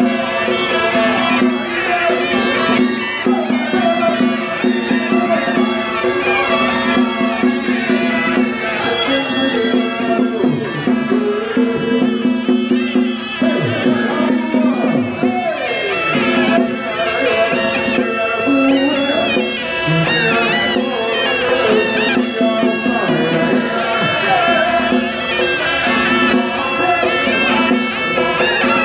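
Traditional Taiwanese ritual music: a reedy wind instrument plays a wavering, gliding melody over a steady held drone.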